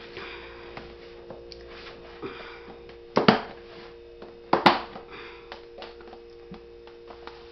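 Two sharp knocks about a second and a half apart, each a quick double hit, over a steady low hum, with faint clicks and rustling of things being handled.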